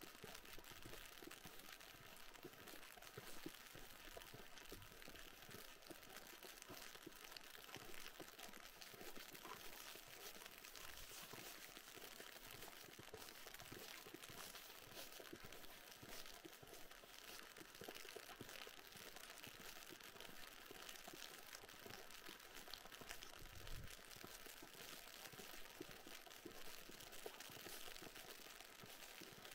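Faint, steady fine crackling and crunching from walking over snow while icy rain falls.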